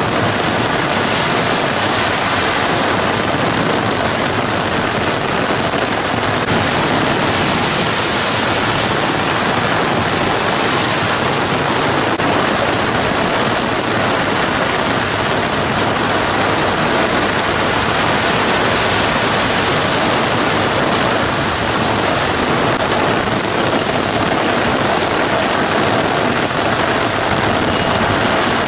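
Heavy rain pouring down in a steady, loud hiss, with cars driving through flooded street water and their tyres throwing up splashes.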